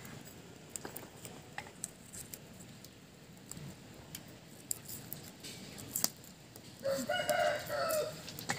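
A rooster crowing once near the end, a single pitched call of about a second and a half, over scattered faint clicks and knocks.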